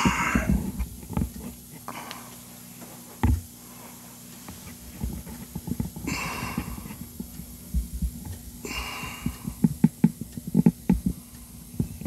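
Handling noise from a phone camera being moved about: irregular low bumps, clicks and short rustles over a steady low hum.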